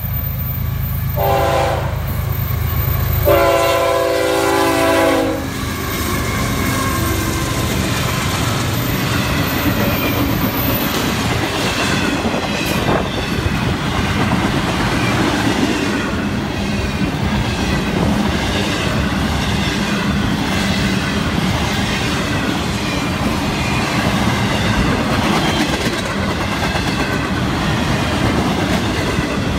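Florida East Coast freight locomotives sounding their horn, a short blast then a longer one, then the train passing close by: diesel engine rumble followed by a long run of double-stack intermodal container cars rolling past with steady wheel clickety-clack over the rail joints.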